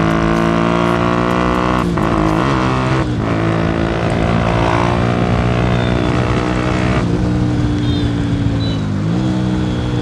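Bajaj Discover 125 ST's single-cylinder engine running loudly through a modified exhaust, heard from the rider's seat. It holds steady revs with two brief dips about two and three seconds in, eases off about seven seconds in, and its pitch dips and picks up again near the end.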